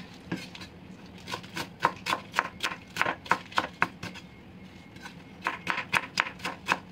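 Chef's knife slicing bok choy on a wooden cutting board: quick, even cuts with the blade tapping the board, about four a second, in two runs with a short pause past the middle.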